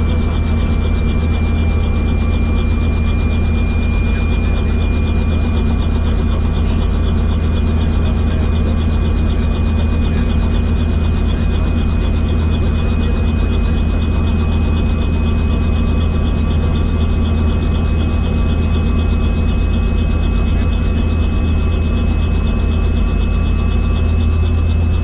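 Helicopter in flight: a steady deep rotor thrum with a thin high turbine whine that creeps slightly up in pitch.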